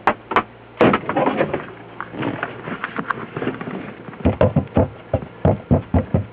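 An irregular series of knocks, bumps and clatters, with a denser run of sharp thumps in the second half: things being shifted about in a cabinet under a sink, with the camera being handled.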